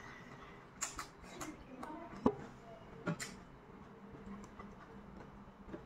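Close-miked chewing and crunching of fresh cucumber slices, with a few crisp crunches in the first three seconds, then quieter chewing.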